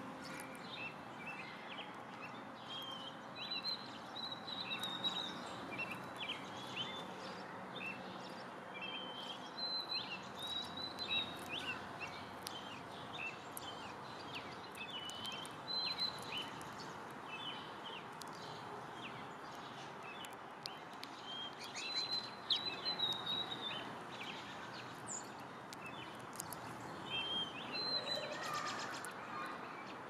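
Small songbirds chirping: many short, high calls, bunched every few seconds, over steady background noise.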